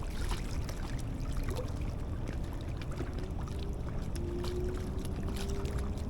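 Water lapping and trickling at the river's edge over a steady low rumble, with scattered faint clicks. A faint hum comes in about halfway through and rises slightly in pitch.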